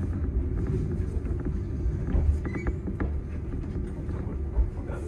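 Electric train rolling slowly into a siding, with a steady low rumble, wheel clicks and a brief high wheel squeal about two seconds in.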